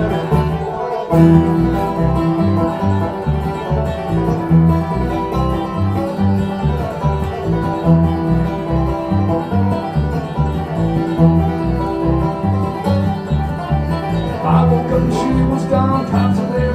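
Live bluegrass band playing an instrumental break, banjo and guitar picking over a steady, rhythmic low bass line.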